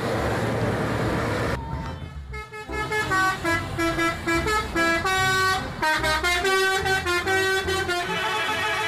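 Traffic noise, then from about two and a half seconds in a bus's multi-tone musical horn (the Indonesian 'telolet' kind) plays a tune of short held notes stepping up and down in pitch.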